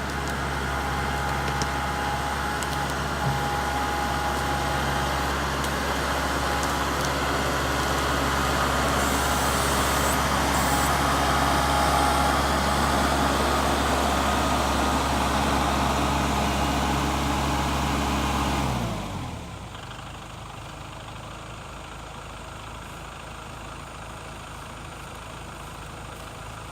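Kubota MX5800 tractor's four-cylinder diesel engine running steadily at working speed. About two-thirds of the way through, the engine speed drops sharply and it settles to a quieter idle.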